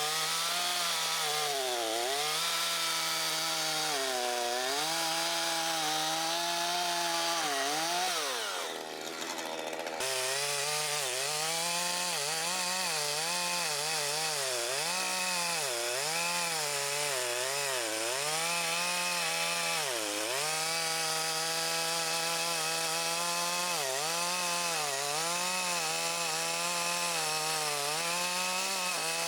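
Makita DCS5121 50 cc two-stroke petrol chainsaw running at high revs, its pitch dipping and recovering every second or two as the engine is loaded in a cut. About eight seconds in the revs fall steeply and quieten, then the saw is suddenly back at full speed and carries on dipping under load.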